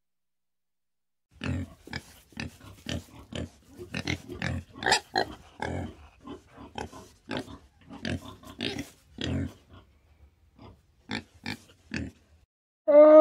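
Black pig grunting: a run of short, irregular grunts, two or three a second, that stops just before the end. A louder, drawn-out animal call starts right at the end.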